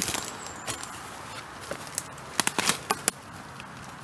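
Footsteps crunching through dry leaf litter and twigs, with several sharp snaps and crackles between about two and three seconds in.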